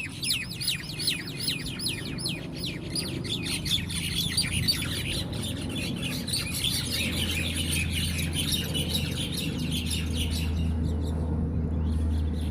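Birds chirping: quick falling chirps repeated several times a second, then a denser high chatter of many birds that thins out near the end, over a steady low hum.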